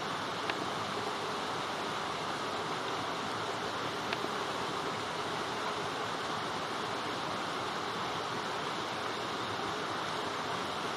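Steady hiss of light rain, with two brief faint ticks, one about half a second in and one about four seconds in.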